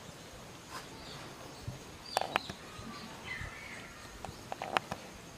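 Baby monkey sucking on a milk bottle: a few sharp clicking smacks about two seconds in and again near the end, with a faint chirp in between.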